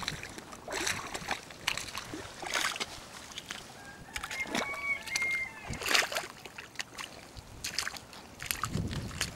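Rubber-booted footsteps squelching and splashing through wet mud and puddles, roughly one step a second. Wind buffets the microphone near the end.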